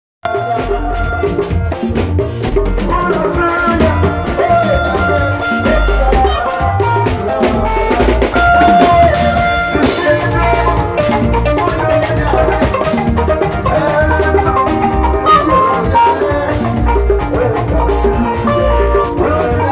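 Live band playing a Ghanaian highlife-style groove: drum kit and djembe keeping a dense rhythm under a deep, pulsing electric bass, with a keyboard carrying a bright melody on top.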